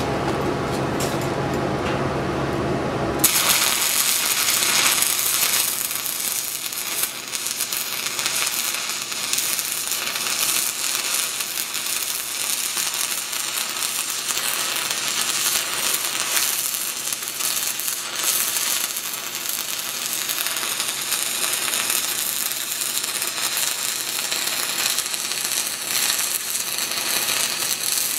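Stick-welding arc of a 6010 electrode running a downhill hot pass on steel pipe. The arc strikes about three seconds in and then crackles steadily.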